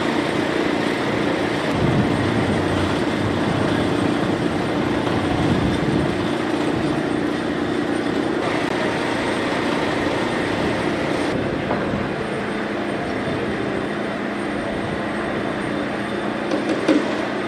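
Steady mechanical running noise, a continuous rush with a low hum under it. Its character changes abruptly about eight and eleven seconds in.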